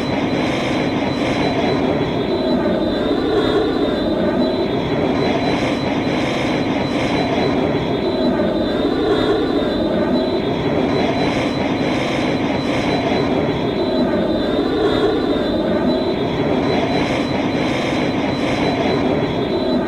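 Sound effect of a Star Wars Y-wing bomber's engine heard from outside: a steady, looping jet-like engine hum with a thin high whistle, swelling gently about every six seconds.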